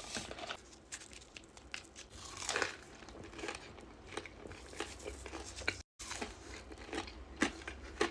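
Close-up chewing and mouth sounds of someone eating chili cheese fries: scattered wet smacks and soft clicks. The sound cuts out completely for a split second about six seconds in.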